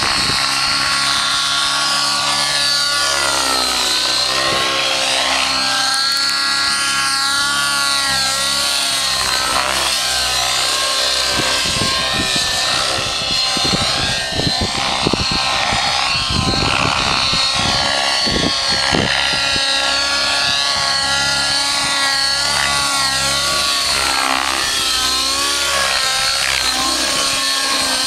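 Curtis Youngblood Rave 90 radio-controlled helicopter flying aerobatics: its nitro engine and rotor blades give a continuous whine that keeps rising and falling in pitch.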